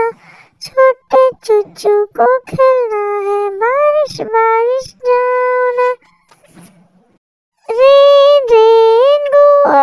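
A high voice singing a nursery rhyme in long held notes, phrase by phrase, with a pause of about a second and a half midway.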